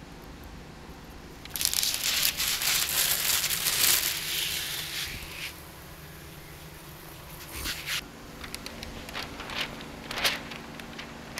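Window tint film crinkling and a pump spray bottle spraying water onto the truck's door glass. A loud crackly stretch of about four seconds begins a second and a half in, followed by lighter crackles as the wet film is handled near the end.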